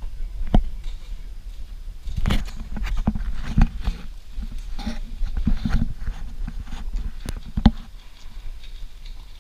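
Footsteps on cobblestones: a run of irregular hard knocks and taps, busiest from about two seconds in to about six seconds in.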